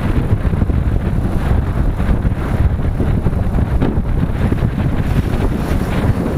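Wind buffeting the microphone on a moving motorcycle, a loud, steady low rumble.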